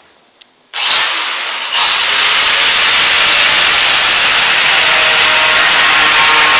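Angle grinder with a steel wire brush switched on about a second in, its motor whine rising sharply, then the spinning brush pressed onto a steel plate: a loud, steady scraping as it strips caked-on grime from the metal.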